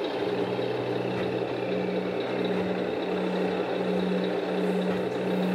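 Electronic diesel-engine idle from the speaker sound modules of scale RC Scania trucks: a steady low hum that pulses evenly a little more than once a second.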